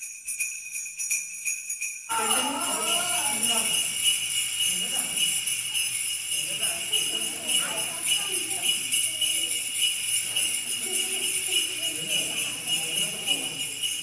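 Sleigh bells jingling steadily. About two seconds in the bell sound changes abruptly and a lower, busier layer of sound comes in beneath it.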